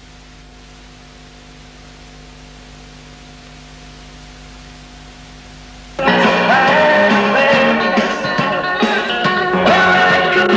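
A steady low electrical hum in a gap between songs, then guitar-driven rock music with singing cuts in abruptly about six seconds in.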